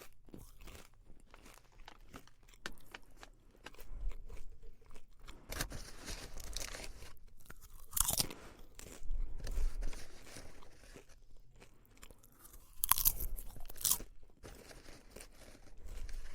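A person chewing popcorn close to the microphone: irregular crisp crunches in uneven clusters, some bites much louder than others.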